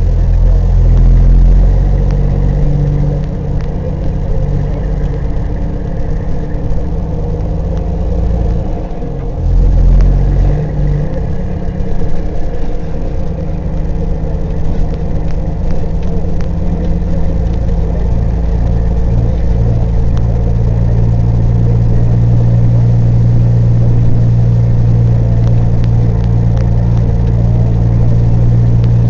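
Peterbilt 379 semi truck's diesel engine heard from inside the cab while the truck drives a dirt road, a loud low drone. It swells louder about a second in and again about ten seconds in, then holds a steady pitch for the last dozen seconds.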